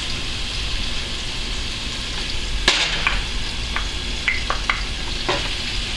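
Chopped onions sizzling steadily in hot oil in a pot while minced garlic is added: a sharp knock about two and a half seconds in, then several light taps as a wooden spoon scrapes the garlic out of a small glass bowl.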